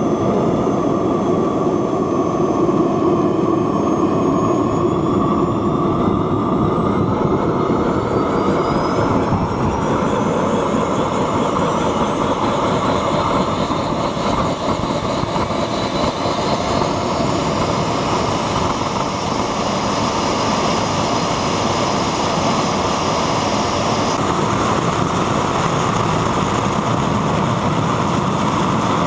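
A small model turbojet engine, feeding the welded turbine housing of a homemade turboshaft, running after a hot restart. It makes a loud, steady jet noise with a high whine that climbs in pitch over the first half as it spools up.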